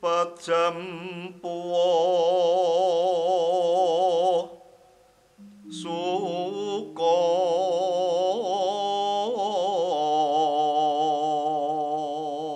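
A solo voice singing a Javanese bawa, the free-rhythm sung introduction to a gamelan piece, in long held notes with a wide vibrato. There are two phrases, with a short break about halfway through, and a steady lower tone sounds beneath.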